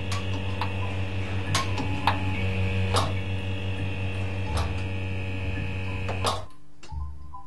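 A steady electrical hum with a higher buzz above it, dotted with sharp clicks and ticks, that cuts off suddenly about six and a half seconds in; this is part of the installation's composed sound piece.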